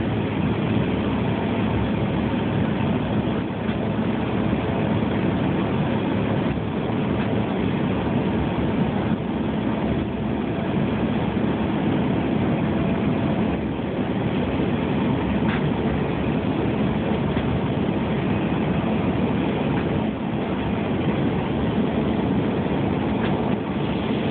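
Cabin noise of a CRJ200 regional jet climbing out after takeoff: the steady drone of its two rear-mounted GE CF34 turbofans and the airflow, with a low hum underneath.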